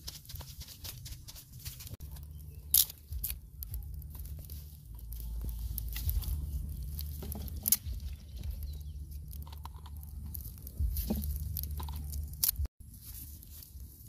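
Dry straw and grass crunching and crackling as it is handled and set burning in a small earth pit, with a few sharp snaps, over a low steady rumble.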